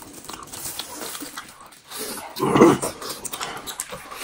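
A man eating, chewing and sucking at a piece of braised meat with tendon and gristle, with wet mouth clicks and smacks. About two and a half seconds in he makes a short pitched sound with his mouth full.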